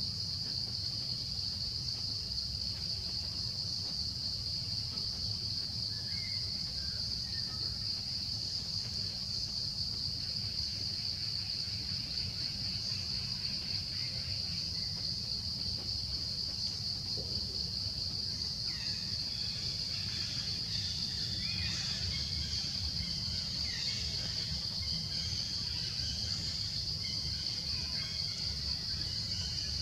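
Steady, unbroken high-pitched insect chorus over a low rumble, with a few faint short chirps in the second half.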